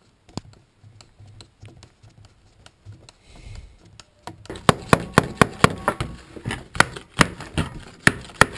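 Quiet screwdriver and handling clicks on a plastic pump tube, then from about halfway a fast run of sharp knocks, three or four a second, as the tube is struck with a mallet, knocking gravel out of it.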